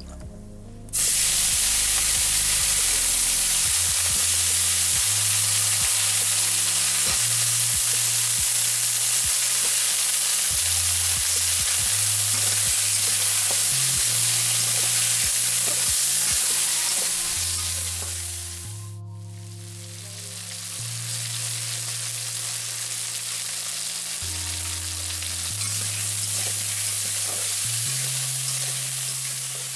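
Potato wedges, green beans and onion frying in hot oil in a metal kadai: a loud sizzle starts suddenly about a second in as the vegetables hit the oil, with clicks and scrapes of the metal spatula as they are stirred. The sizzle drops away briefly about two-thirds through, then comes back.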